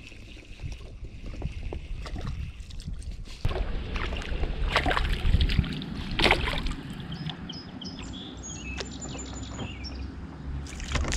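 Small fish being reeled in on a spinning reel from a plastic kayak: wind rumble on the microphone with scattered handling knocks against the hull, two louder sharp sounds about five and six seconds in, and faint high chirps toward the end.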